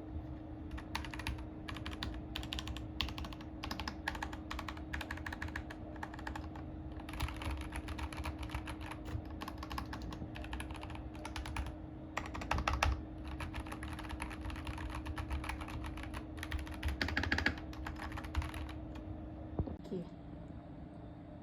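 Typing on a Keychron K2 Pro mechanical keyboard with brown (tactile) switches: a steady run of key clacks, with two louder flurries about 13 and 17 seconds in. The typing stops about 19 seconds in, over a faint steady hum.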